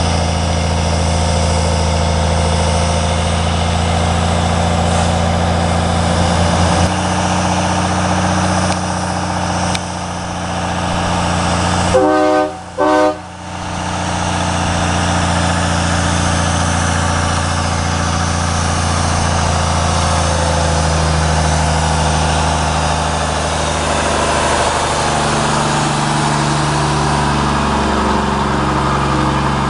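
Peterbilt log truck's diesel engine pulling steadily under load up a grade. About twelve seconds in, its train horn gives two short blasts. Near the end the engine note steps a few times.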